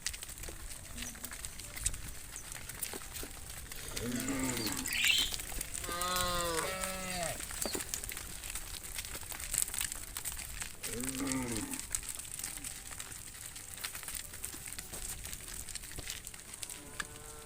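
Cattle lowing: separate drawn-out moos about four, six and eleven seconds in, and another starting near the end.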